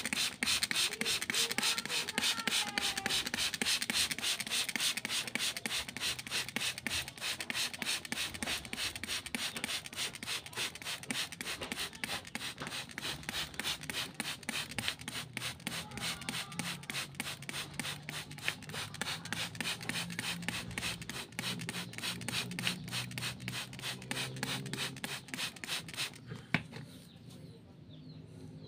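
Hand trigger spray bottle squeezed rapidly to mist water, a short hiss of spray several times a second in a steady rhythm that stops about 26 seconds in.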